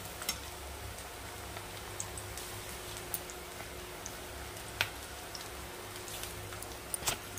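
Besan (gram-flour) pakoras deep-frying in hot oil in a pan: a steady sizzle with scattered crackles and pops, a sharp pop about five seconds in and a few more near the end.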